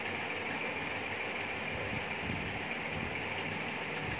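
Steady mechanical hum and hiss with no separate events.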